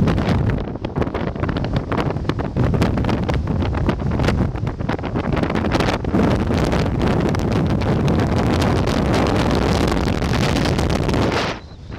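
Strong wind buffeting the camera's microphone on an exposed snowy mountain top, gusting up and down with a deep rumble, easing sharply for a moment near the end.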